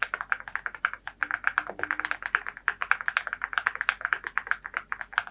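Fast typing on a keyboard fitted with Cerakey ceramic (porcelain) keycaps: a rapid, continuous run of keystroke clacks, about ten a second.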